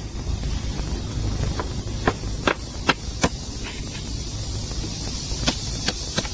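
Dovetailed wooden beehive-box boards being fitted together by hand: a series of sharp, irregular wooden knocks and clicks, over a low steady rumble.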